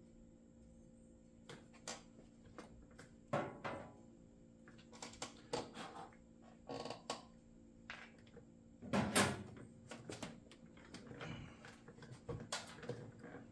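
Small chainsaw parts and their packaging being handled on a workbench: scattered clicks, light knocks and short rustles of plastic, starting about a second and a half in, with the loudest rustle about nine seconds in.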